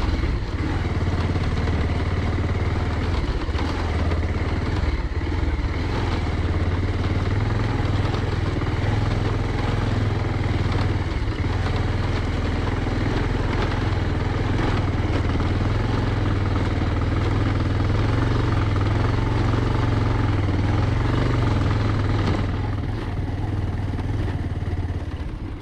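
Motorcycle engine running steadily at low speed while the bike rides over a rough cobblestone track, with scattered knocks and rattles from the stones. The engine eases off near the end.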